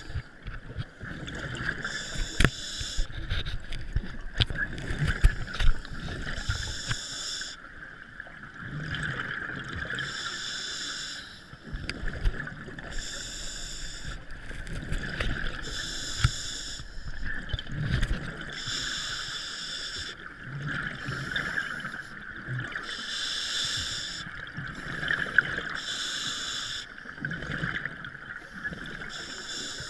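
Scuba diver breathing through a regulator, recorded underwater: a hissing, bubbling exhalation about every three seconds, over a steady hiss and low rumble.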